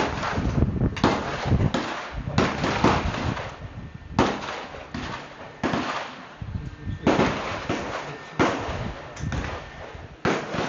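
Gunfire from several guns on a firing line: about a dozen sharp shots at irregular spacing, each ringing on briefly after the crack.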